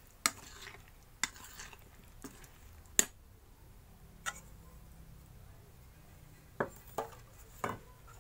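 Steel spoon stirring and scraping chilli pickle mix in a bowl, with a series of sharp clinks of the spoon against the bowl. The loudest clink comes about three seconds in, and a few more come near the end.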